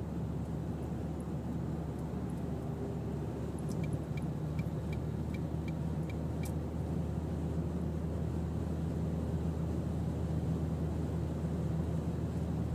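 Steady low rumble with a faint hum. About four seconds in, a quick run of about eight light ticks.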